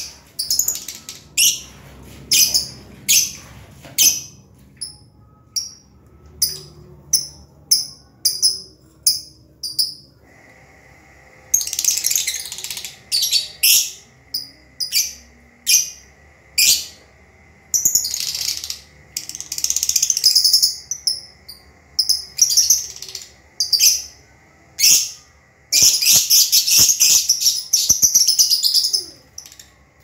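A flock of lovebirds calling with sharp, high-pitched chirps in quick series, breaking into bouts of dense, shrill chattering several times.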